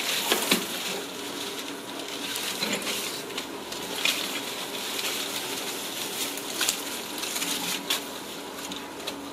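Rustling and crinkling of an artificial plant's plastic leaves and stems as kittens paw through it, with scattered sharp clicks and taps of the plastic pieces.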